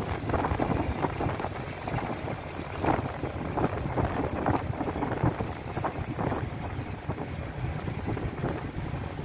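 Wind buffeting the microphone in uneven gusts over the steady low rumble of a boat's engine.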